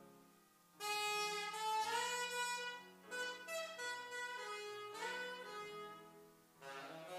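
Saxophone playing a melody over grand piano accompaniment. The piano sounds softly alone at first, and the saxophone comes in loud about a second in, playing a phrase of gliding, sustained notes.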